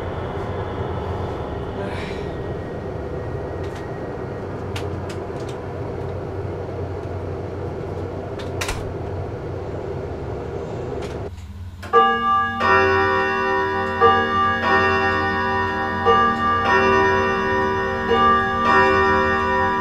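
A steady low rumble with a few faint clicks, then about twelve seconds in, held organ chords begin and sustain, louder than the rumble.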